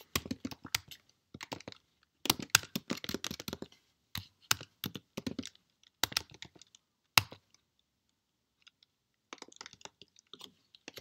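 Typing on a computer keyboard: quick flurries of keystrokes with short pauses, and a break of about two seconds past the middle before the typing resumes.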